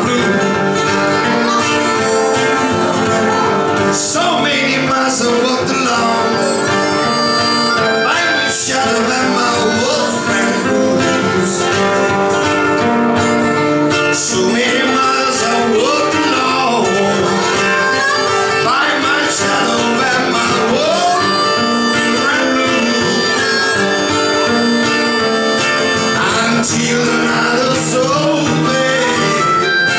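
Live acoustic guitar and harmonica playing together: the guitar keeps a steady accompaniment while the harmonica plays over it.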